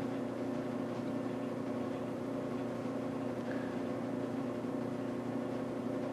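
Steady mechanical hum: a low drone made of several held tones over a light hiss, even in level with no starts or stops.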